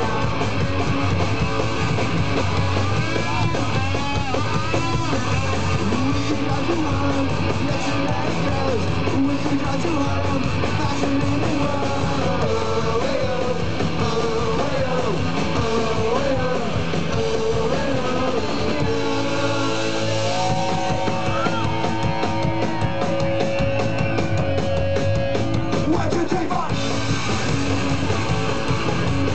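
Punk rock band playing live at full volume: distorted electric guitar, bass and drums, with singing, recorded from within the crowd.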